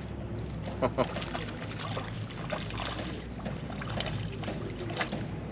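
Harbour ambience while a fish is being played: a steady low rumble with light lapping of water, a few sharp clicks near the end, and a short word about a second in.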